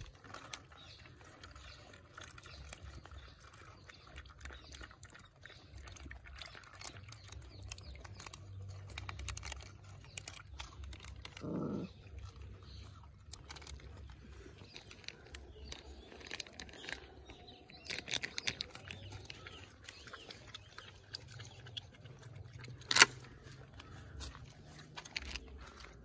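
A litter of puppies and their mother dog eating from plates on the ground: soft chewing, lapping and small clicks and scrapes of food and dishes throughout. A brief cry sounds about twelve seconds in, and a single sharp click, the loudest sound, comes near the end.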